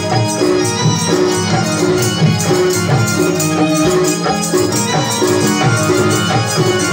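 Loud folk-style dance music with percussion, a short melodic figure repeating about every half second.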